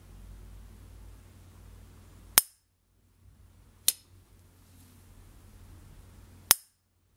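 Silver-plated S.T. Dupont Ligne 1 lighter's lid snapping, three times: each a sharp, bright metallic ping with a brief ring, the well-known Dupont 'cling'.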